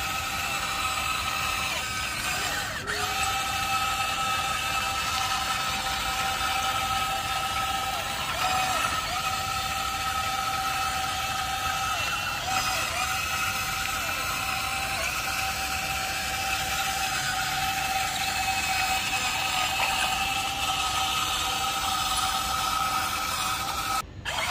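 Huina RC excavator's electric motors and gear drives whining steadily as the boom, arm and bucket are worked, the pitch dipping briefly now and then as a motor takes load or changes direction. The sound cuts out for a moment near the end.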